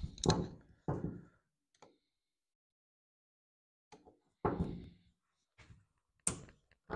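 Several separate knocks and clunks of a metal carburetor from a Kawasaki V-twin engine being handled and taken apart, its body and small parts set down on the bench, with a quiet spell of about two seconds in the middle.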